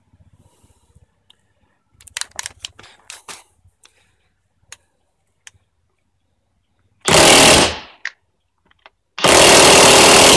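DeWalt XR cordless high-torque impact wrench, rated 1,000 foot-pounds, hammering on a leaf-spring bolt in two loud bursts of about a second each, the second a little longer. A few light knocks and clicks come before, as the tool and socket are fitted.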